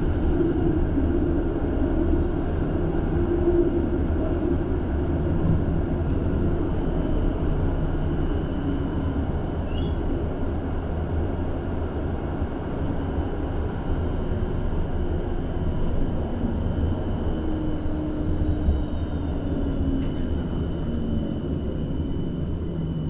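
Ride inside a moving electric tram: steady low rumble of the wheels on the rails, with a faint high electric whine. A humming tone sinks in pitch near the end.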